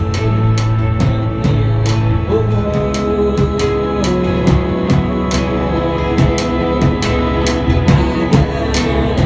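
A live band playing a song: semi-hollow electric guitar over a drum kit keeping a steady beat.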